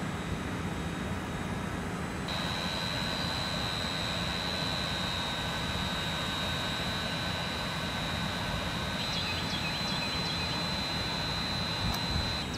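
Steady outdoor background rush, with a thin steady high-pitched tone that comes in about two seconds in and a few faint bird chirps near the end.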